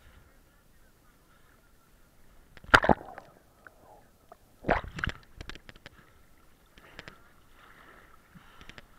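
Sea water sloshing and splashing against a swimmer's action camera at the waterline, with two loud splashes about three and five seconds in, then smaller clicks and lapping as the camera dips under and comes back up.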